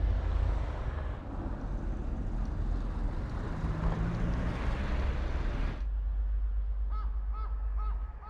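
Outdoor street noise with a low wind rumble on the microphone and passing traffic, which cuts off just before six seconds in. Near the end a bird calls in a quick run of short calls, about four of them.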